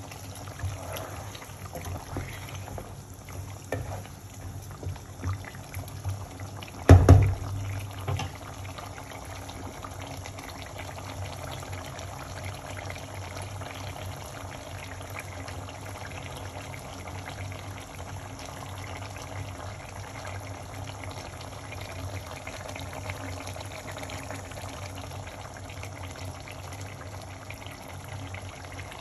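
Deer meat curry cooking in a pan. A wooden spatula stirs and knocks against the pan for the first several seconds, with one loud knock about seven seconds in. After that the thick gravy simmers and bubbles steadily.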